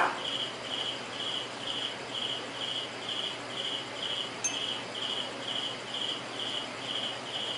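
A cricket chirping steadily, about two short chirps a second, over a faint background hiss, with one small click about halfway through.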